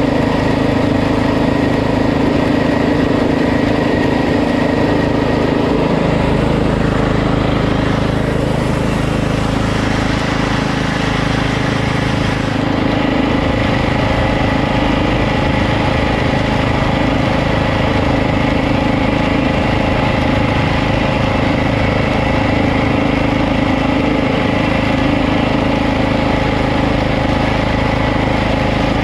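Poulan PXT12538 lawn tractor's 12.5-horsepower engine running as the tractor drives along, with a slight change in tone about six seconds in.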